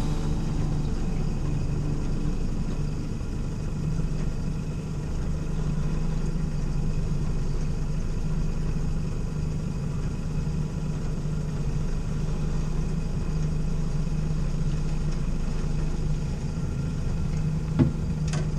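Outboard motor running steadily at trolling speed, a constant low hum. A single short knock sounds near the end.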